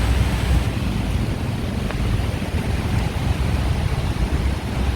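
Steady rushing wash of water on a flooded street, with a low rumble underneath.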